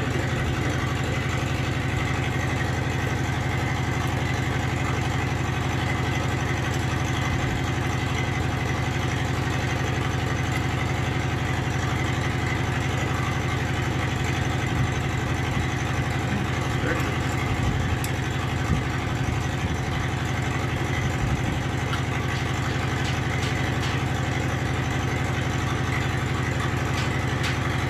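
A steady engine idling with an unchanging low drone, and a few light metallic clicks of a wrench and screwdriver on the valve gear partway through.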